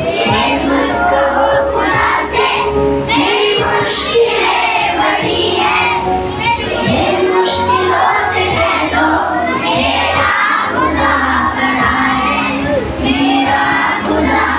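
A group of children singing a prayer together, many voices overlapping without a break.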